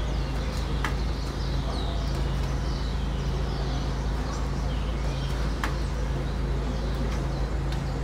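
Many starlings chirping and whistling at their evening roost, with short calls that often sweep downward, over a steady low rumble of city traffic. Two sharp clicks stand out, one about a second in and one near six seconds.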